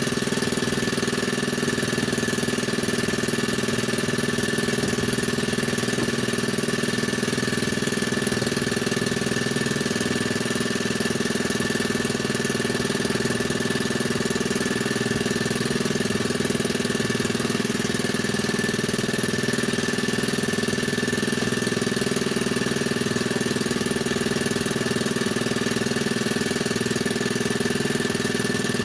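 Small boat engine running steadily at an unchanging speed.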